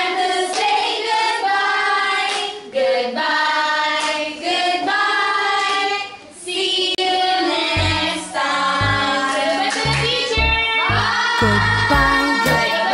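A group of children singing a song together in unison. A low beat joins about eight seconds in.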